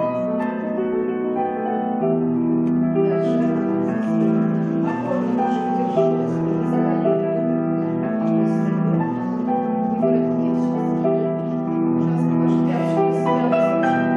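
Piano music playing, with held notes and chords changing throughout.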